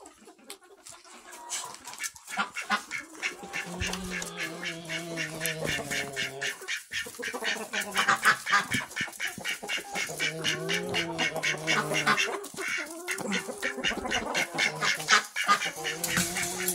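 Mixed barnyard flock of chickens and ducks calling, with rapid quacking chatter prominent. A low drawn-out sound comes three times over it.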